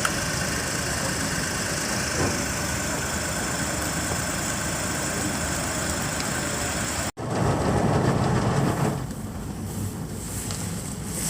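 Car engine idling steadily. About seven seconds in, the sound cuts off abruptly and a louder, rougher noise follows, easing off after a couple of seconds.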